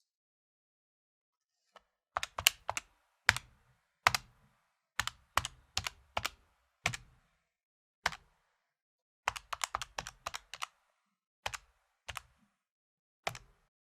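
Calculator keys being tapped: sharp plastic clicks in irregular bursts of two to five presses, starting about two seconds in, with short pauses between bursts.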